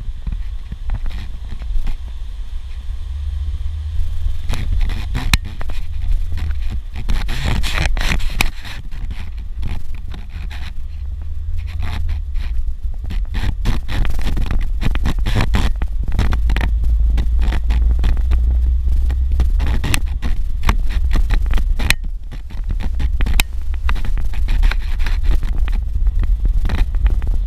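Suzuki Jimny driving on a rough dirt road: a steady low rumble with constant scraping, crunching and rattling from gravel and bumps, a little quieter in the first few seconds.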